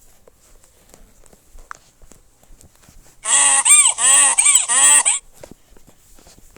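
Animal-call sound effect: four loud calls in quick succession, each rising and falling in pitch, starting about three seconds in and lasting about two seconds.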